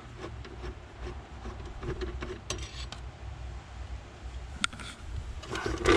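Screwdriver backing a screw out of a plastic heater-box housing: faint scraping and handling noise with a couple of sharper clicks, over a low steady rumble.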